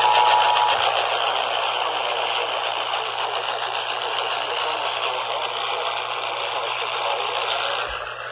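Emergency Alert System broadcast from a receiver: it starts suddenly with the two-note attention tone, which is quickly buried under loud, even hiss and static lasting about eight seconds. The noise eases just before the end, over a steady low hum.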